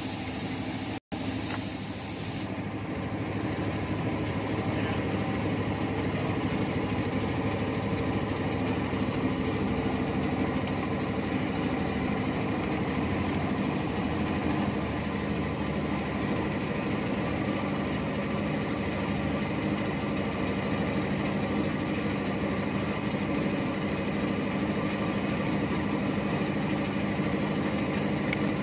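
Heavy-equipment engine running steadily at idle, with a brief dropout about a second in.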